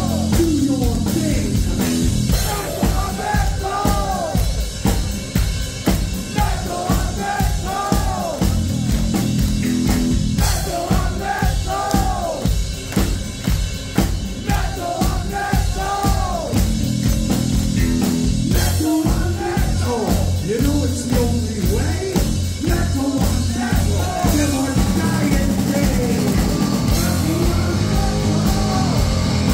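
Heavy metal band playing live: the drum kit keeps a steady beat under sung vocals, and the full band with electric guitar comes back in near the end.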